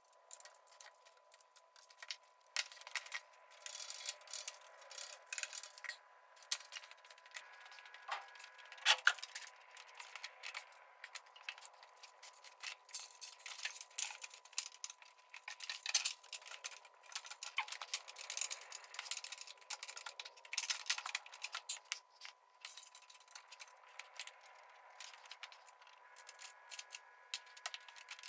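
Irregular light clinks, clicks and rattles of small hard objects being handled, coming thick and fast with short pauses, over a faint steady high hum.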